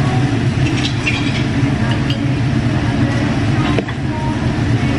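Steady low hum of a Korean BBQ table's overhead exhaust fan, with meat sizzling on the tabletop grill and a few faint clicks.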